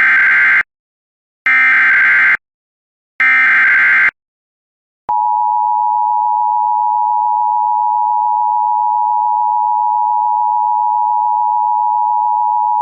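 Emergency Alert System SAME header: three short bursts of warbling data tones, about a second each and a second apart. About five seconds in, the steady two-tone EAS attention signal sounds and holds, opening a National Weather Service severe thunderstorm warning.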